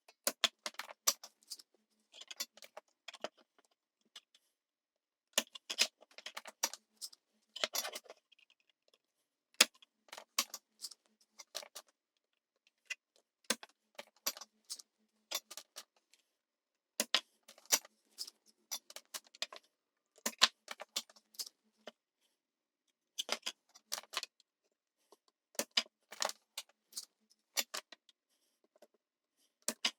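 Light metallic clicks and clinks from small hand tools working at a circuit board while old solder is cleared from the joints. They come in irregular clusters with short silent gaps between.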